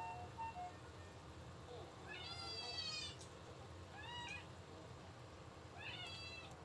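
A domestic cat meowing three times: one long meow of about a second, then two short ones, the last near the end.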